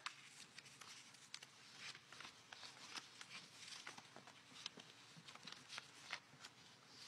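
Near silence in a hall: faint, irregular clicks and rustles of footsteps and people shifting in their seats over a low hiss.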